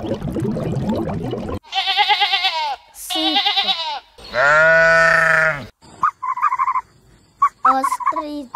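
Sheep bleating: three bleats, the third long and the loudest.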